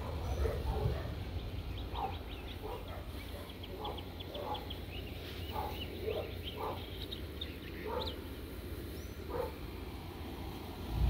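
Short animal calls repeat every half second to a second, with a rapid high chatter among them, over a low wind rumble on the microphone. The rumble swells sharply at the very end.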